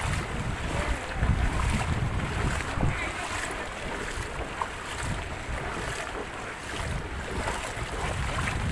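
Wind buffeting the microphone in uneven gusts, over a steady wash of floodwater running across the road.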